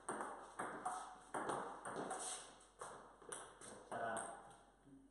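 Table tennis rally: the celluloid ball clicking off the paddles and bouncing on the table, about two sharp knocks a second. Each knock rings briefly in the bare, concrete-floored garage.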